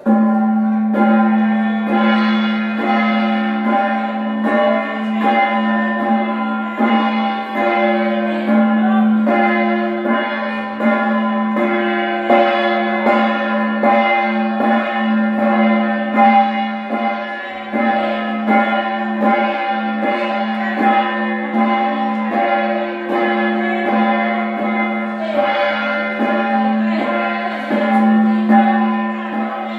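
Hmong shaman's ritual gong struck over and over in a steady rhythm, its ringing carrying between strokes, with the metal ring rattle shaken along with it; it begins abruptly.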